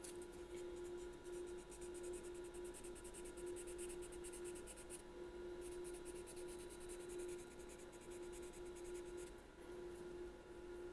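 Fine sandpaper rubbed in quick back-and-forth strokes against the thumb rest on the lower joint of a wooden Albert-system clarinet, a faint scratchy rasp that pauses briefly about halfway and again near the end. It is being sanded smooth so the thumb rest can no longer be felt.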